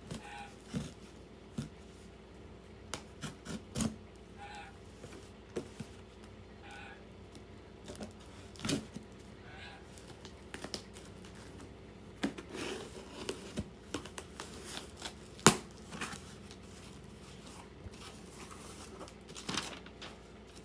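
Packing tape on a cardboard box being slit with a blade and the flaps pulled open: scattered scraping, tearing and crinkling of tape and cardboard, with a few short squeaks in the first half and a sharp click about three-quarters of the way through.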